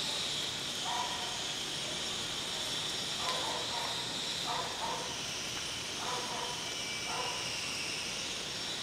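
Steady hiss from a gas burner heating a beaker water bath, its pitch sagging a little and rising again near the end, with a few faint short sounds over it.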